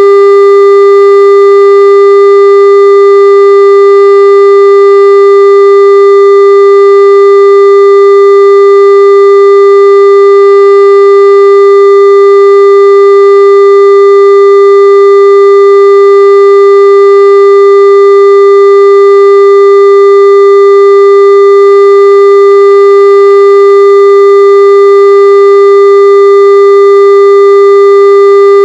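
Steady broadcast line-up test tone sounding with the colour bars: one loud, unbroken mid-pitched tone with faint overtones, unchanging in pitch and level.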